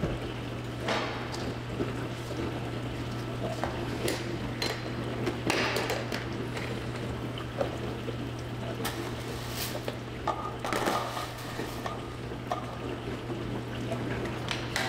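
A plastic rice storage bin being handled: its lid and clear plastic measuring-cup insert knock and scrape, and dry rice grains shift and rustle, in a string of short irregular clatters.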